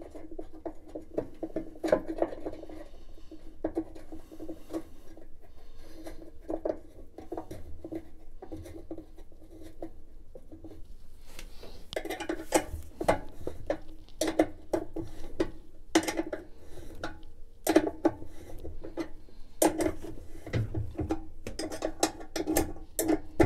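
Irregular metallic clinks and taps of a 7/16 wrench on the shoulder bolt as it is turned in to fasten a new agitator coupling onto a GE washing machine's drive shaft.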